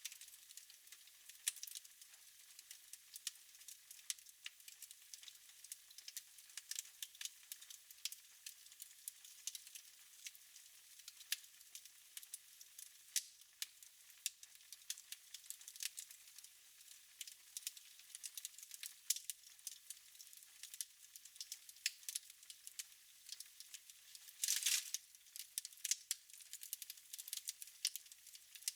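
Wood fire crackling in a fireplace: irregular sharp pops and snaps over a faint hiss, with a short flurry of louder crackling about 25 seconds in.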